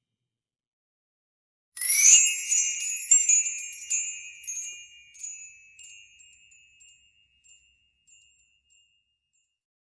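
Magic-wand sound effect made from wind chimes: after near silence, a quick run of high chime strikes starts about two seconds in with a rising sweep, then rings on and fades out over about five seconds.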